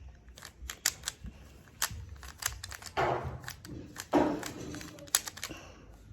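Plastic Rubik's cube being twisted by hand: a quick, irregular run of sharp clicks and clacks as the layers turn, with two longer, louder rasping turns about three and four seconds in.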